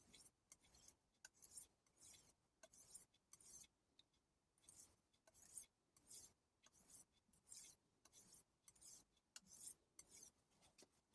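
Faint, quick hissing strokes of a Global G-48 santoku's steel edge drawn back and forth across the 3500-grit side of a Chroma whetstone, about two to three strokes a second: polishing the edge.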